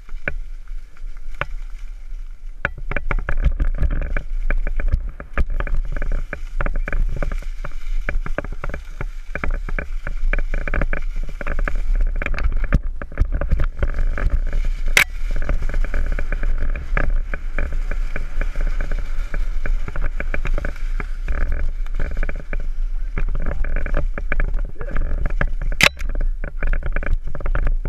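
Downhill mountain bike descending a rough trail: wind buffeting the microphone as a heavy low rumble, under tyre noise and constant rattling clicks from the bike over the ground. Two sharp knocks stand out, about halfway and near the end.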